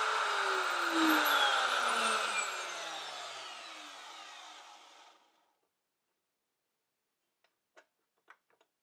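Router on a router lathe switched off and spinning down: its whine falls steadily in pitch and fades out over about four seconds. A few faint clicks follow near the end.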